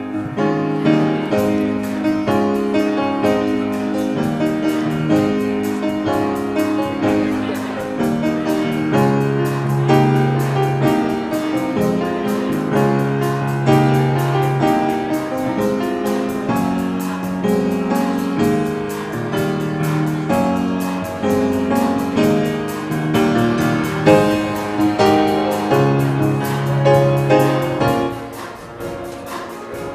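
Instrumental postlude on a keyboard instrument: slow chords with held notes, with no singing. It gets softer near the end.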